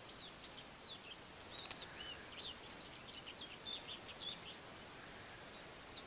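Faint high, quick chirping and twittering of small birds, a rapid run of short notes that stops about four seconds in, over a steady hiss of outdoor background noise.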